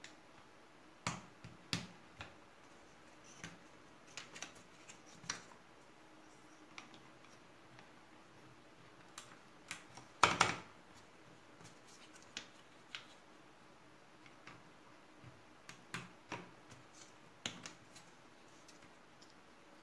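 Keycaps being pushed down onto the switches of a mechanical keyboard: scattered sharp clicks and taps at irregular intervals, with one louder, brief clatter about halfway through.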